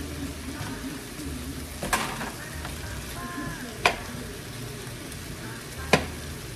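Sliced zucchini, onion and chicken frying in a hot nonstick pan, a steady sizzle as they are stirred with a plastic spatula. Three sharp clicks, about two seconds apart, stand out above the sizzle.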